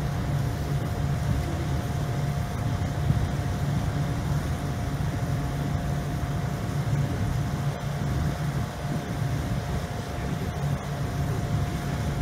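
Car ferry's engines running steadily under way: a low drone with a thin, steady higher tone above it, over an even rush of noise from the wake and the air.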